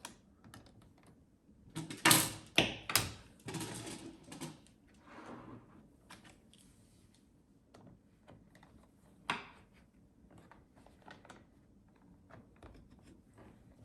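Plastic snap-fit clips on an HP 14 laptop's case cracking loose as the case halves are pried apart. There are sharp cracks about two to three seconds in, a rattly cluster around four seconds, another crack a little after nine seconds, and light ticks of plastic in between.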